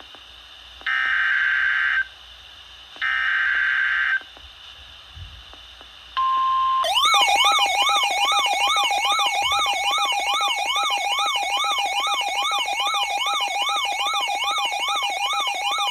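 Emergency Alert System severe thunderstorm warning opening: two screechy SAME data-header bursts, each about a second long with about a second between them. A short steady beep follows about six seconds in, then a loud warbling, siren-like attention tone that sweeps up and down about twice a second over a steady tone.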